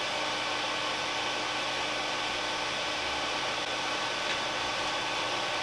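Elegoo Neptune 2 3D printer's cooling fans running with a steady whir and a faint hum while the nozzle preheats for extruding filament.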